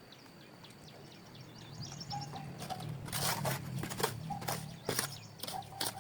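Birds chirping with short falling calls. From about two and a half seconds in, a run of sharp strikes or scrapes comes several times a second over a low hum.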